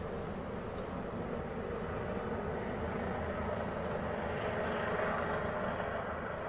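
FS E646 electric locomotive standing with its auxiliary machinery running, a steady whirring rush of its cooling blowers that swells slightly toward the end.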